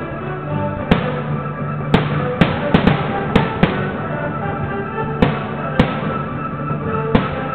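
Aerial firework shells bursting: about a dozen sharp bangs at irregular intervals, several close together around the middle. Steady music plays underneath.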